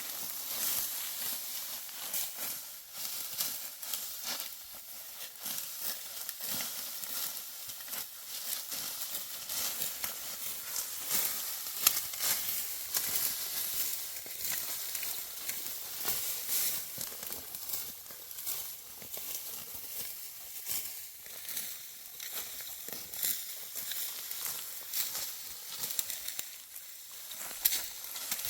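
Dry wheat stalks crunching and rustling as they are reaped by hand with a sickle, an irregular run of crackles and sharp snaps over a steady high hiss.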